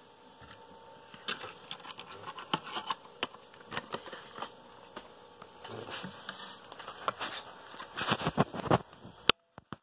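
Playing-card decks in their boxes being handled and set down on a desk mat: a run of light taps, clicks and scrapes, busiest and loudest toward the end, then cutting off abruptly.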